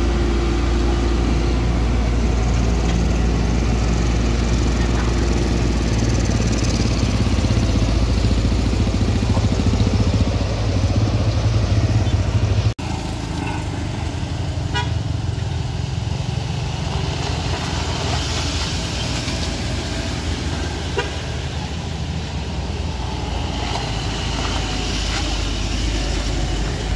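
Heavy vehicle engines run loud and low on a road, growing louder before an abrupt cut to quieter passing traffic. Short horn toots sound near the end.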